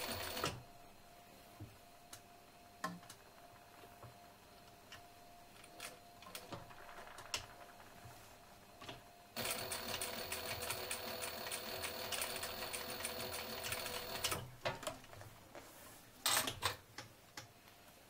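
Industrial sewing machine stitching through quilted fabric in short runs. It stops just after the start, then runs steadily for about five seconds midway. In between come small clicks and rustles of the fabric being handled.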